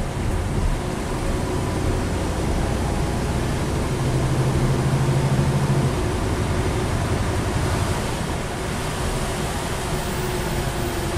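Scania N230UD double-decker bus under way, heard from a passenger seat: the diesel engine pulls steadily under road and tyre noise. The engine note grows louder for a couple of seconds a few seconds in, then eases back.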